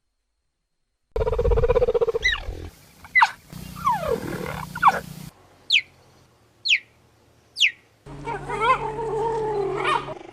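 Sound-designed Hypsilophodon dinosaur calls. After a moment of silence comes a pitched call, then several sweeping squeals, three short high chirps about a second apart, each falling in pitch, and a longer wavering call near the end.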